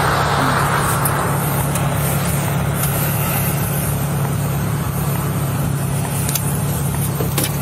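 Car engine idling steadily close by, a low even hum, with a faint click near the end.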